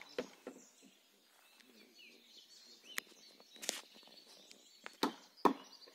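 Quiet outdoor garden ambience with faint bird chirps and a few sharp clicks and knocks. The loudest click comes about five and a half seconds in.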